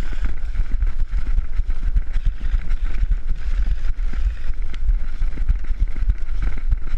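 Loud low rumble with irregular thumps and a steady hiss: wind and handling noise on a GoPro action camera's microphone as the wearer moves.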